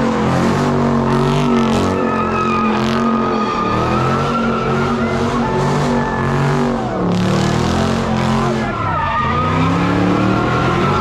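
Drift car's engine revving hard while its rear tires squeal in a sustained slide. The revs fall and climb again about seven to nine seconds in.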